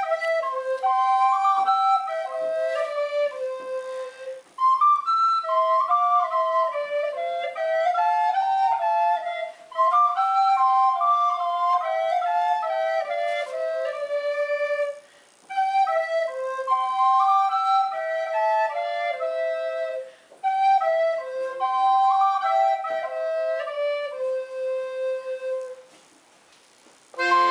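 A recorder playing a Christmas carol melody solo, in five short phrases with a brief breath between each, stopping about a second before the end.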